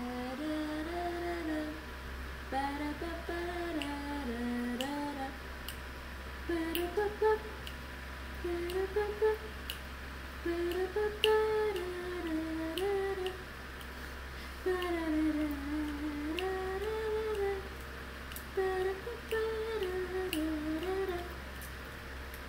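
A person humming a wavering tune in short phrases, with scattered sharp clicks between them.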